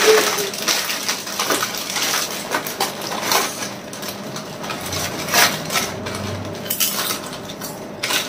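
Lay's potato chip packets crinkling and crackling as they are torn open by hand and the chips pulled out, a dense run of sharp crackles.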